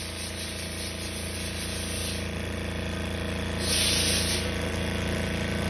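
Richpeace CNC automatic quilting sewing machine running, stitching through a thick padded furniture panel: a steady, rapid mechanical run over a motor hum, with a louder hiss for about a second near the middle.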